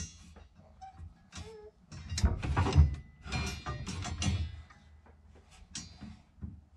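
Slotted steel bars clanking, rattling and scraping against a wooden frame as they are handled and slid through its grooves, in a series of irregular knocks and scrapes.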